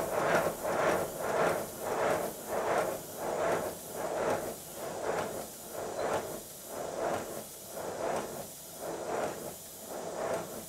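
Model steam locomotive (LBSC 'Speedy' pannier tank) running on compressed air on a rolling road. Its exhaust chuffs in an even beat of about two to three a second, slowing a little and growing fainter as it goes.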